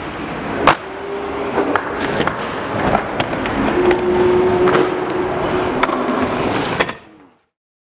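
Inline skates rolling over a concrete skatepark floor and ledges, with sharp clacks of wheels and frames striking and grinding. The loudest clack comes just under a second in. Two longer steady whines come about a second in and again near the middle. The sound cuts off suddenly near the end.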